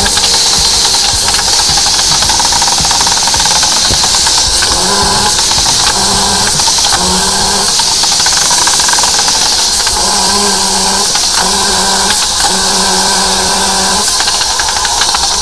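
High-pressure drain jetter running: a steady loud hiss of water under pressure over the hum of the pump's engine, with a low drone that comes and goes several times.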